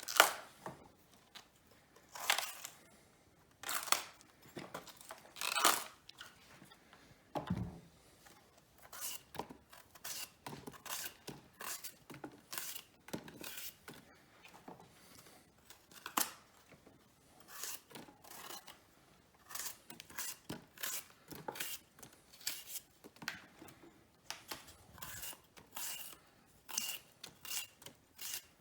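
Fennel bulbs being cleaned by hand: crisp tearing and snapping as the layers are pulled apart, in irregular short strokes, with one duller knock about seven and a half seconds in.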